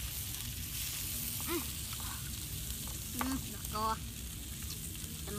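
Fish roasting on an open wood fire: steady sizzling and crackling from the embers. A few brief voice sounds break in over it.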